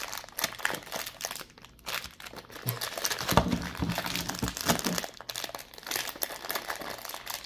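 Clear plastic wrapping crinkling as it is pulled off a new 4x4 speed cube by hand, with a dull knock about three and a half seconds in.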